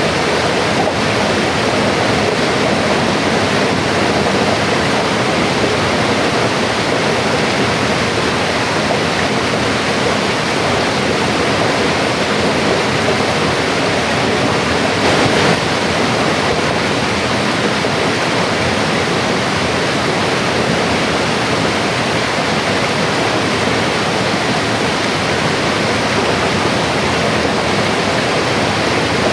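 Mountain river flowing: a steady rush of water, with a slight brief swell about halfway through.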